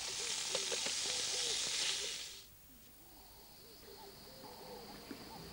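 Sausages sizzling in a frying pan on a camp stove: a steady hiss that cuts off suddenly after about two seconds. Then a quiet background with a steady high thin whine and faint repeated short calls.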